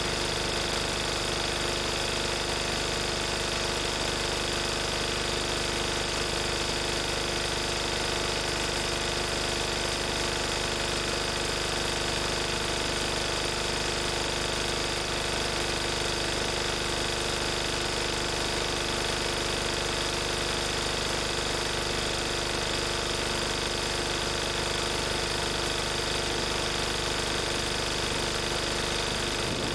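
Lister Petter AD1 single-cylinder air-cooled diesel engine running steadily at its governed 3000 rpm, driving a 5 kVA Markon generator.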